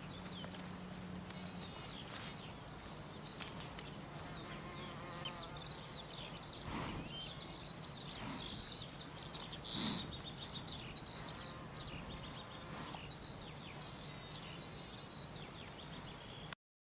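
Many small birds chirping, a dense run of short, high chirps over a faint steady hum. The sound cuts off suddenly near the end.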